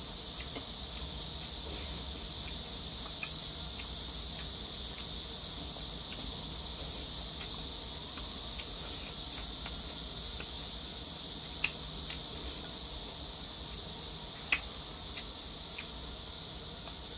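A steady, high, insect-like buzz, with faint clicks and chewing as noodles are eaten with wooden chopsticks from a porcelain plate. Two sharper clicks come in the second half.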